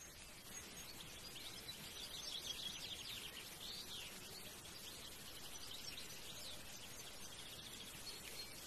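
Small birds chirping and trilling, with rapid high trills thickest in the first few seconds, over a faint steady background hiss.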